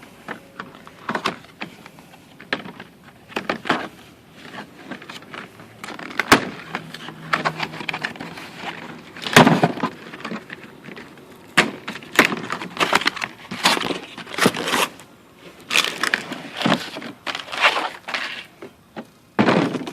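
A cardboard box being opened and unpacked by hand: irregular rustling, scraping and tearing of cardboard, with sharp knocks and clicks as the tool's carrying case is pulled out and handled.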